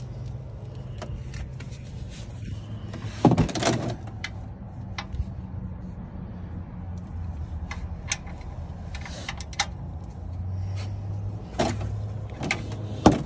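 A ratchet and socket loosening an engine oil drain plug: scattered metallic clicks and knocks, with one louder clatter about three seconds in, over a steady low hum. The plug is coming loose easily, not real tight.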